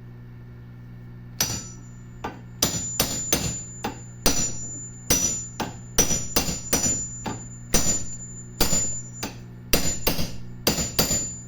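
Hammer striking a wrench laid as a drift, tapping a part into the heated alloy housing of an Electrolux LTE12 washing machine's mechanism. A string of sharp metallic blows starts about a second and a half in, roughly two a second, some with a high ring, over a steady low hum.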